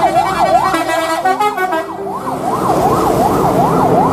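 Fast yelping siren, its pitch sweeping up and down about two and a half times a second without a break.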